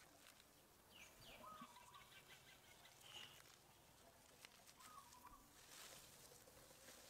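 Near silence: faint forest ambience with a few short, faint chirping calls scattered through it.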